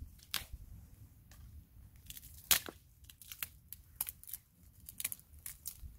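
Dry twigs snapping and dry grass crackling as they are handled and laid for a campfire: a string of irregular sharp cracks, the loudest about two and a half seconds in.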